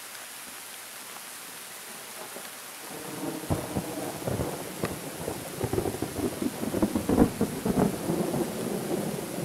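Thunder rolling in about three seconds in, a rumble with many sharp crackles that swells and peaks near the end, over a steady background hiss.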